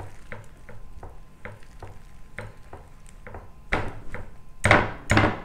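Wire whisk stirring flour and warm water into a dough in a glass mixing bowl: scraping strokes against the glass about three a second, growing louder near the end with a few harder scrapes and knocks.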